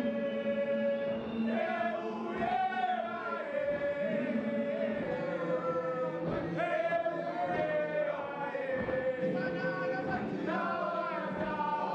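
A large group of schoolboys singing a gwijo hymn together in several voice parts, holding long steady notes.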